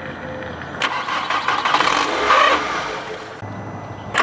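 A 2002 Volkswagen Jetta's 2.0 four-cylinder engine catches about a second in, runs and revs briefly, then dies after a couple of seconds; a fresh start attempt begins right at the end. The engine starting then dying at once is a fault that the owner suspects comes from a timing belt that has slipped a notch.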